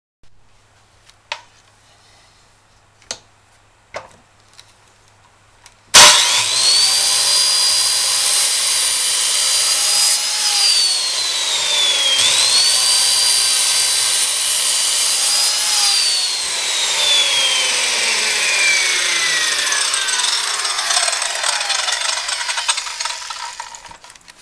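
A handheld electric circular saw starts abruptly about six seconds in, after a few light handling clicks, and runs with a high motor whine while cutting wooden boards on a dado jig. Its pitch sags and recovers once, then falls steadily as the saw winds down near the end.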